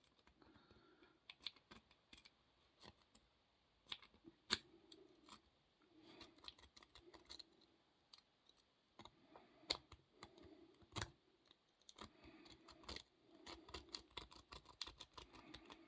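Near silence with faint, scattered metallic clicks and light handling of a padlock and its picking tools, a few clicks louder than the rest.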